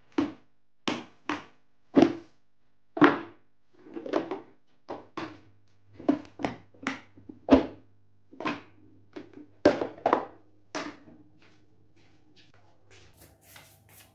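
Plastic Ecentio two-tier lunch boxes being taken apart by hand: an irregular run of sharp plastic clacks and knocks as latches, lids and tiers are handled and set down on a wooden tabletop, thinning to a few faint taps about eleven seconds in.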